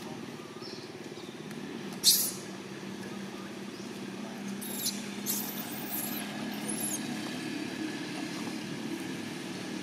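A baby long-tailed macaque giving a few short, high-pitched squeals about halfway through, over a steady low hum. A single sharp high burst about two seconds in is the loudest sound.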